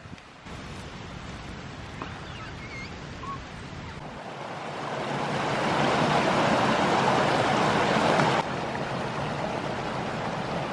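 A small mountain waterfall and stream rushing over rocks: a steady rushing noise that swells about halfway through and drops suddenly to a lower level near the end.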